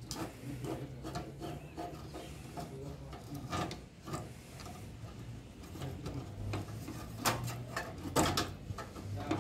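Screwdriver scraping and clicking against screws and metal parts as the battery box of a gas water heater is worked loose. There are a few sharper knocks of parts being handled, mostly near the end.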